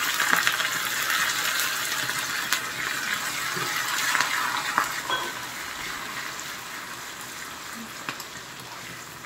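Curry leaves, dried red chillies and garlic sizzling in hot sesame oil in a small aluminium tempering pan, stirred with a spoon: a spice tempering. The sizzle is loudest just after the curry leaves go in and dies down over the second half, with a few light spoon clicks on the pan.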